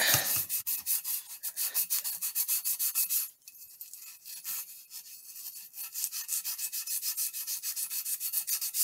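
Brush scrubbing rust off the oiled outside of a steel shotgun barrel in quick back-and-forth strokes, about five a second, softer for a couple of seconds after about three seconds in, then picking up again.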